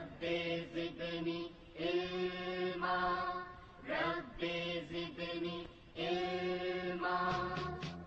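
Background music: a chanted vocal line of long held notes that glide between pitches, over a steady low drone, with brief pauses between phrases.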